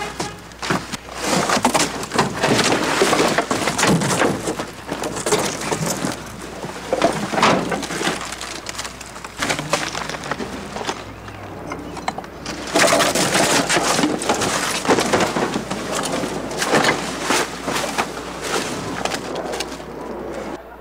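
Rubbish being rummaged through: plastic bags and litter rustling and crackling in quick, sharp bursts, with a short lull about halfway.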